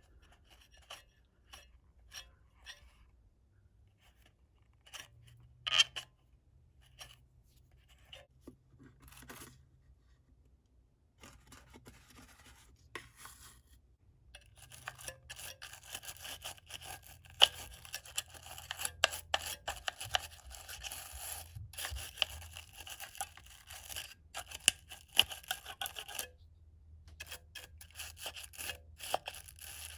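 Toothbrush scrubbing corrosion off the metal battery springs in a calculator's plastic battery compartment. At first there are scattered scratches and taps; about halfway in, steady rapid scrubbing sets in for roughly twelve seconds, then stops briefly before a few more strokes.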